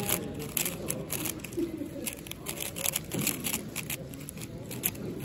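A plastic 4x4 speedcube being turned fast by hand, its layers snapping round in a rapid, irregular clatter of clicks.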